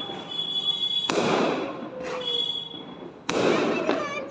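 Fireworks going off: two loud bangs, about a second in and again a little after three seconds, each trailing off in a crackle, with high thin whistling tones between them.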